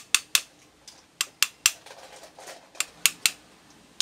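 Small metal hammer tapping on an electric fan motor's housing: sharp metallic taps in quick groups of two or three, about eight in all. The tight-fitting housing is being knocked into place.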